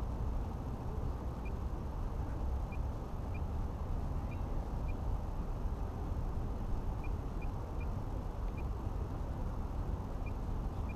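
Wind rumbling on the camera microphone, a steady low noise, with faint, short high chirps scattered through it.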